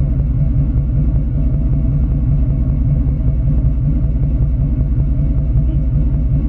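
A 2004 truck's 5.7-litre Hemi V8 running steadily, with an even, rhythmic exhaust pulse. The owner is listening for an intermittent puff of air or pop from the passenger-side bank (cylinders 1, 3, 5, 7), but no separate puff stands out from the steady running.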